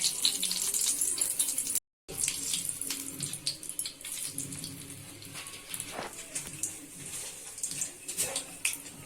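Ghee heating for a tadka in a small pan, sizzling with a steady high hiss and scattered crackling pops. The sound cuts out completely for a moment about two seconds in.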